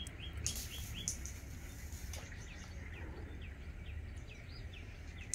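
A songbird calls over and over with short, falling chirps, a few each second, over a steady low rumble. Two brief hissy sounds come about half a second and a second in.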